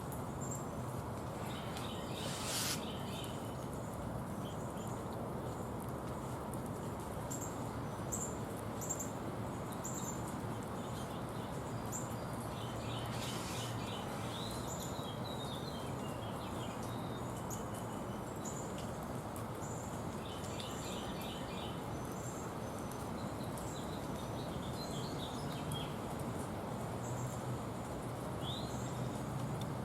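Small birds chirping in short clusters every several seconds, with faint high ticking calls between them and two brief harsher calls, over a steady background hiss.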